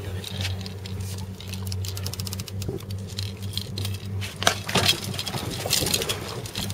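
Handling noise from the camera rubbing and knocking against clothing: a rapid patter of small clicks and scrapes, a little louder near the end. Under it runs the steady low hum of the boat's engine.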